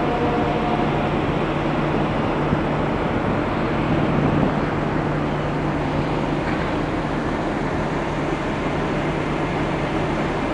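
Ship's engine and machinery running with a steady low hum under a constant rushing noise, unchanging throughout.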